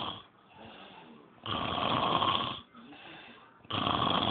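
A man snoring: loud snores a little over a second long, about every two and a half seconds, with quieter breathing between them.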